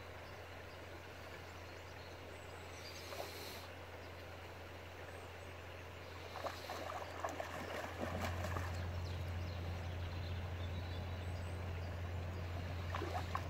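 A steady low hum that gets louder about eight seconds in, with a few faint short knocks about halfway through and again near the end.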